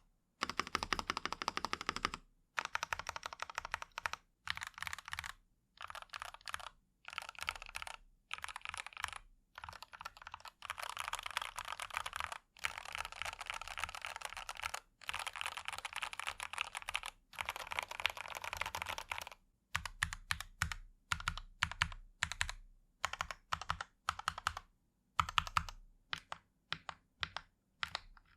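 Typing on a DustSilver D66 65% mechanical keyboard fitted with factory-lubed Gateron G Pro Red linear switches: fast runs of keystrokes in bursts of a second or two with brief pauses between them. In the later part the strokes come more spaced out, some with a deeper knock.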